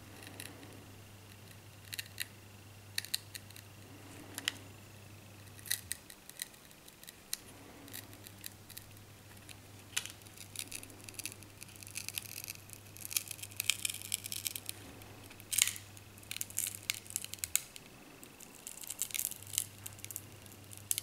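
A plastic opening pick prying the cracked glass digitizer off a Huawei Y550 phone. Irregular small clicks and crackles come as the heat-softened adhesive gives way, thickening toward the middle and again near the end.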